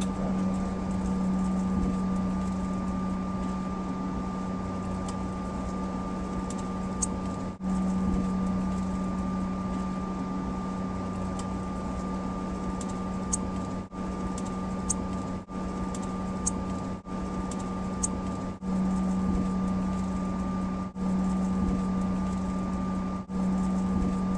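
Steady airliner cabin noise: engine and air-system drone with a low hum and a fainter higher tone. The sound dips out briefly several times in the second half.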